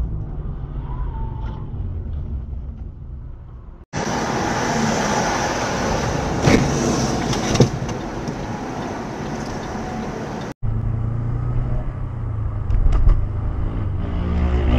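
Cars driving, heard from inside the cabin: steady road and engine noise that changes suddenly twice. The middle stretch is a louder, even rushing noise with two sharp knocks in it.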